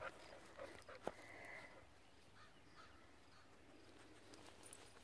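Near silence with the faint, scattered clicks and tearing of horses cropping grass; one sharper click about a second in.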